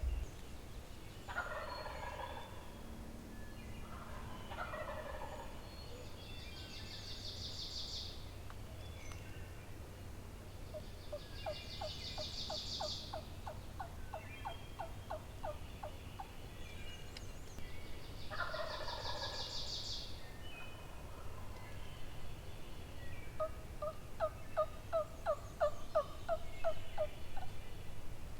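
Wild turkey gobblers gobbling, three separate gobbles, one soon after the start, one a few seconds later and one about two-thirds of the way through. Two runs of turkey yelps, about three notes a second, come in the middle and near the end, and a high buzzy songbird trill repeats several times.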